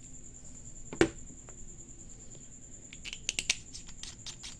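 Small clicks from handling a USB-rechargeable flashlight: one sharp click about a second in, then a quick run of lighter clicks about three seconds in.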